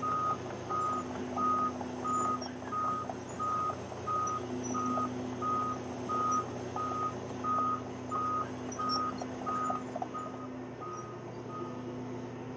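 Vehicle reversing alarm beeping at an even pace, about one and a half beeps a second, stopping shortly before the end. A heavy diesel engine runs steadily underneath.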